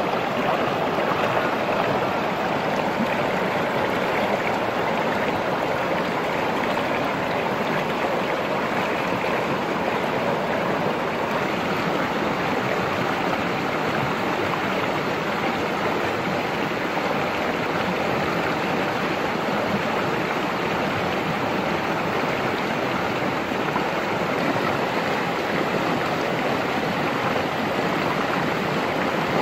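Fast-flowing stream rushing over and around rocks: a steady, unbroken rush of water.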